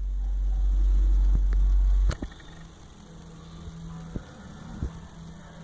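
Snoring: a loud, low rumbling snore that cuts off abruptly about two seconds in, followed by a fainter steady low hum with a few small clicks.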